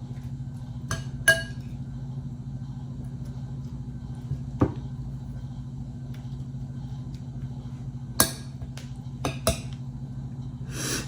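Scattered clinks and taps of a utensil against dishes, about eight separate strikes, over a steady low hum.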